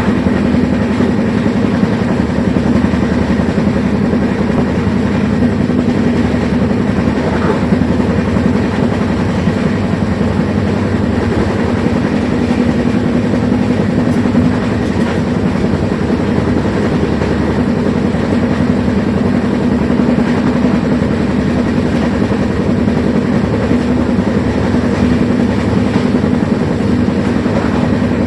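A train running steadily, with a continuous rumble and clatter of wheels on the track that holds at an even level.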